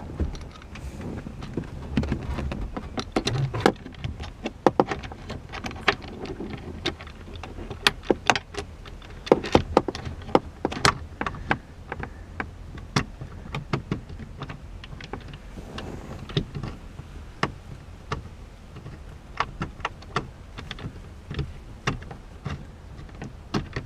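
Irregular metallic clicks and taps of a grab handle and its bolts being handled and fitted while a bolt is lined up and threaded in by hand.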